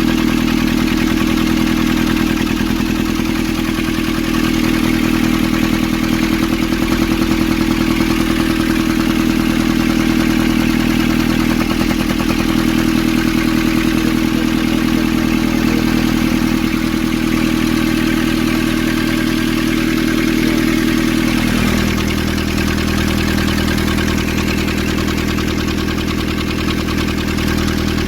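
Nissan ZD30 four-cylinder diesel engine idling steadily; about three-quarters of the way through its speed drops slightly and it settles at a lower idle.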